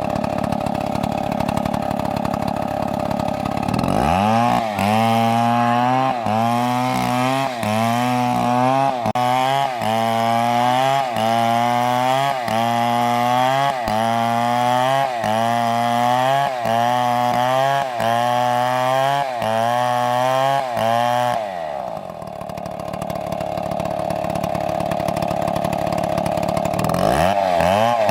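Chainsaw at full throttle, bogging down as it bites into wood about four seconds in. Under load the engine note dips and recovers in a steady rhythm about every three-quarters of a second. Around 21 seconds it screams back up free of the cut, then drops under load again near the end.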